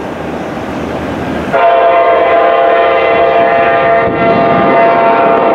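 A locomotive's multi-note air horn starts suddenly about a second and a half in and sounds one long held chord. Before it there is the steady rumble of a train.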